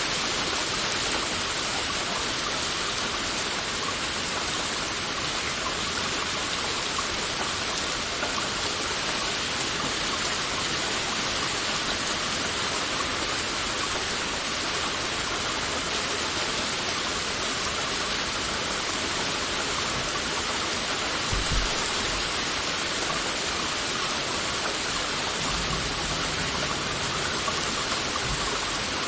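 Heavy rain falling steadily, a dense even hiss of drops. A brief low thud comes about three quarters of the way in, and a low rumble shortly before the end.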